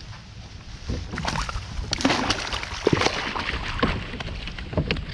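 A hooked bass being landed into a kayak: a flurry of splashes, knocks and rattles from about a second in to about four seconds, with a few more near the end, over a steady low rumble.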